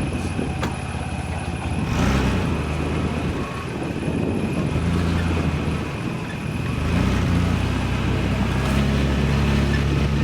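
An old, high-mileage Nissan Pathfinder 4x4's engine running as it drives slowly through sand, with tyre and body noise; the engine grows louder about seven seconds in.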